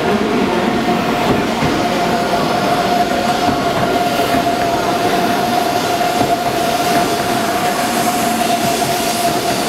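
E2 series Shinkansen train pulling out of the station, its cars rolling past close by with a steady rolling noise from wheels and running gear. A steady high tone runs under it throughout.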